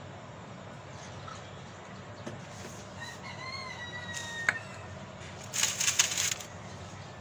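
A rooster crows once, a call of about a second and a half, a few seconds in. A sharp click follows, then a short burst of close rustling and crackling, the loudest sound, as the roots are handled.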